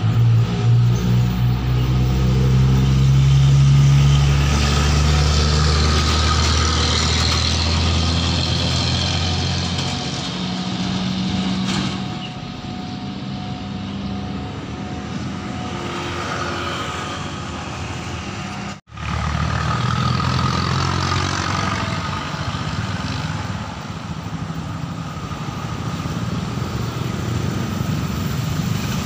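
Heavy diesel engines of road traffic and a train by a railway level crossing. A low engine drone is loudest in the first ten seconds, then eases to steadier traffic noise. The sound cuts out for a moment about nineteen seconds in and comes back as a steady engine hum.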